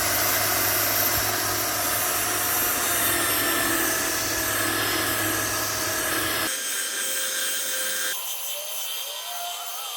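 Makita 9403 4x24 belt sander running steadily with its belt on wood, a loud whirring hum and grinding. About two-thirds of the way through the sound changes abruptly and the deep hum drops out, though a quieter whine carries on.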